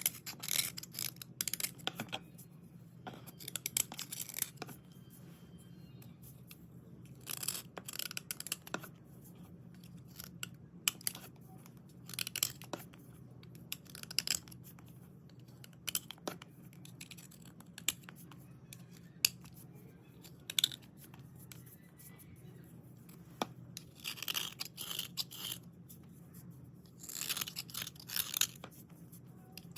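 Dry white slate pencils being scraped and rubbed clean in short scratchy strokes, coming in irregular clusters with a few sharp clicks between them.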